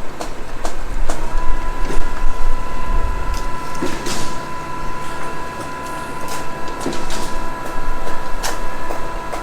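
Heavy construction machinery running. A low engine rumble drops away after about three and a half seconds, a steady high whine sets in about a second in, and scattered clicks and clanks run over it.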